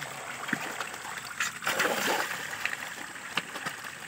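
Pangas catfish thrashing at a pond's surface, a continuous patter of small splashes, with a bigger burst of splashing a little under two seconds in.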